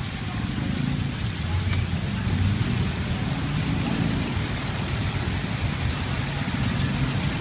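Chicken pieces deep-frying in the oil of a stainless-steel electric deep fryer: a steady sizzle, with a low rumble underneath.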